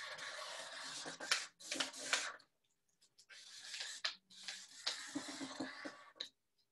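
Sharpie marker scratching across cardstock as a leaf outline is traced over to thicken it, in two long stretches with a short pause between them about two and a half seconds in.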